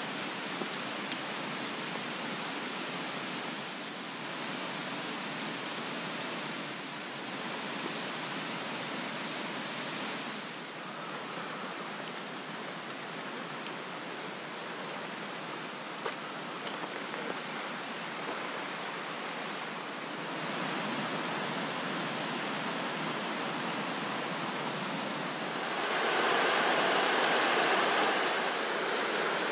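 A rocky mountain stream rushing over boulders: a steady hiss of running water that swells louder near the end.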